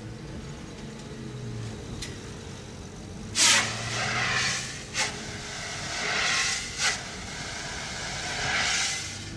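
Fire engine idling with a steady low engine hum. About a third of the way in comes a loud burst of hissing air, the loudest sound here, followed by three more hissing swells and two sharp clicks.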